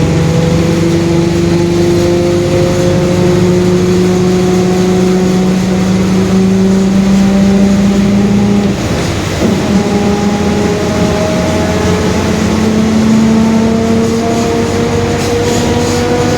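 Mercedes-Benz OF-1721 Bluetec 5 bus heard from on board: its diesel engine pulls with a slowly rising pitch as the bus gains speed, with a short dip about nine seconds in. A droning differential, which the uploader singles out, hums along with it.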